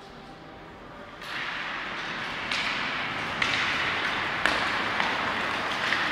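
Ice hockey play on a rink: skate blades hissing and scraping on the ice, starting about a second in, with several sharp clacks of sticks and puck.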